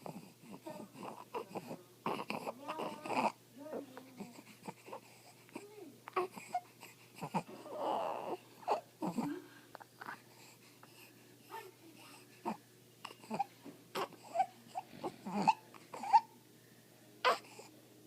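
A baby fussing and crying in short, broken cries, with harsh, noisy breathing between them: stridor.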